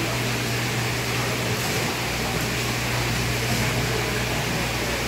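Steady low hum under a constant hiss of running water: live-fish tank pumps and aerators circulating seawater through the holding tanks.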